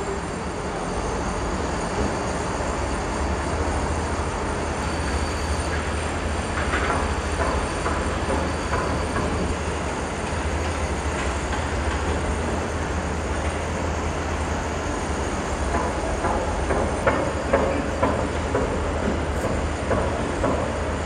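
Construction-site ambience: a steady low rumble of heavy machinery and traffic, with scattered short metallic knocks and clanks, more of them near the end.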